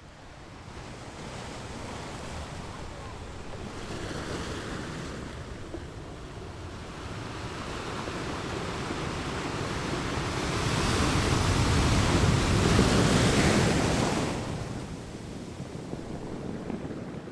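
Sea waves washing onto the shore, with wind buffeting the microphone; the surge builds and is loudest about eleven to fourteen seconds in, then falls away.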